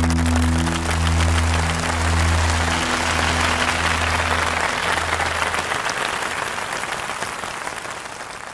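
A rock band's closing chord rings out and dies away about halfway through, under audience applause that swells and then fades out near the end.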